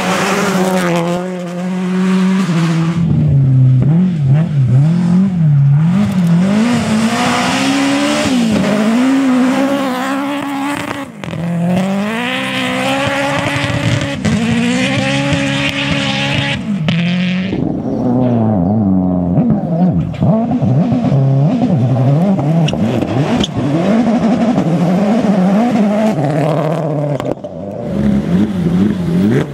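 Rally car engines at full throttle, the pitch rising and falling again and again with gear changes and lifts. The sound changes abruptly a few times as one car gives way to another.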